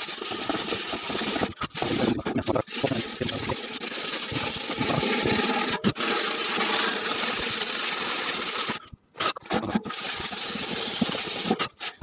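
Wire pan scrubber rubbed hard back and forth over the metal of a washing-machine drum, scouring off limescale and oxide deposits. A steady rasping scrape, which breaks off briefly about nine seconds in and then resumes.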